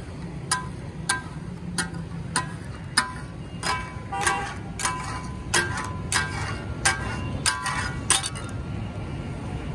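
Metal spatula blades striking a large flat steel tawa griddle in a steady chopping rhythm: a sharp clank with a short metallic ring about every half second, sometimes doubled, as organ meat is chopped for taka tak. The strikes stop near the end, leaving a steady low rumble.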